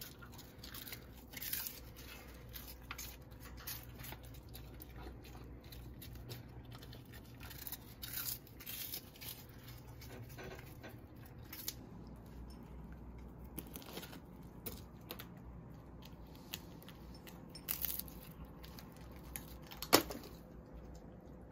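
Faint crinkling and rustling of a plastic bag of dried capelin as a small dog noses and tugs at it, with scattered light clicks and taps. A single sharper knock comes near the end.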